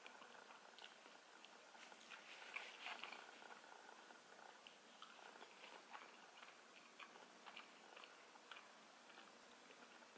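Faint close-up chewing of a mouthful of deep dish pizza, with small, scattered wet mouth clicks and smacks.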